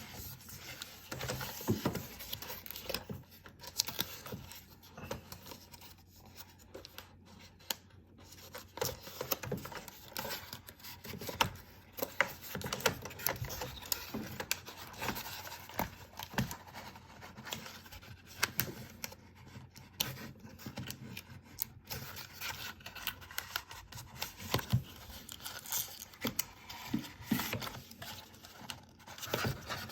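Unboxing handling noise: packaging and a keyboard wrist rest being handled, with irregular scratches, rubs and light taps scattered throughout.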